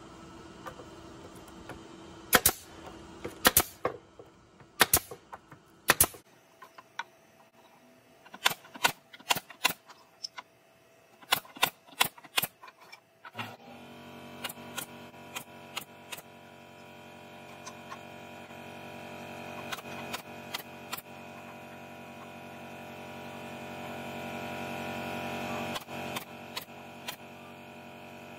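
Pneumatic nailer driving nails into wooden boards: many sharp shots, in pairs and quick runs. From about halfway a steady machine hum comes in and runs on under the shots.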